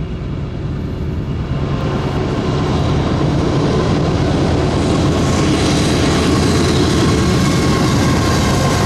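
Diesel locomotives of a Union Pacific freight train approaching. Their low engine drone grows louder over the first few seconds and then holds steady, and a steady high whine joins it about halfway through.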